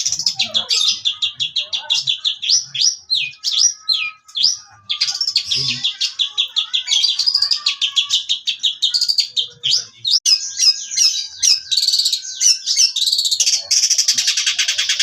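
Long-tailed shrike (cendet) singing non-stop in full song: a fast, unbroken stream of high chattering notes, trills and downward-slurred whistles. A denser, buzzy rattling run starts near the end.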